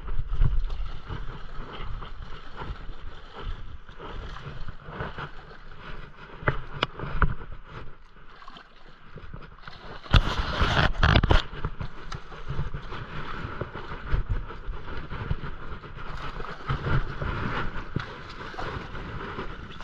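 Spinning reel being worked against a hooked salmon, with wind buffeting the microphone. About ten seconds in the salmon splashes loudly at the surface close to the rocks.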